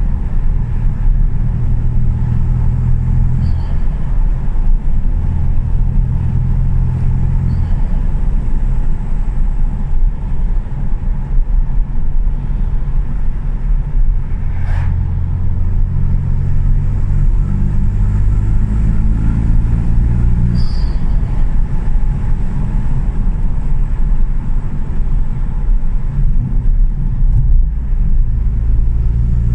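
Ford Fiesta 1.0 EcoBoost three-cylinder turbo engine, remapped, accelerating hard and lifting off several times. A Turbosmart recirculating dump valve gives a short turbo flutter each time the throttle closes. There is one sharp click about halfway.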